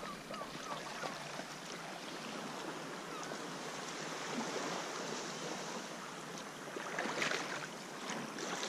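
Steady wash of surf from the sea at low tide, an even hiss with no rhythm, with a few short louder noises about seven seconds in.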